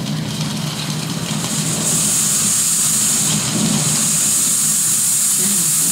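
A steady low hum with a loud high hiss over it. A faint short voice glide comes near the end.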